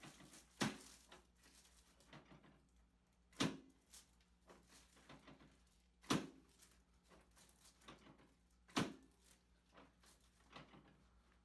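Four sharp thumps about two and a half seconds apart, with softer knocks and rustling between, from a chiropractic treatment being worked on a patient lying on a treatment table.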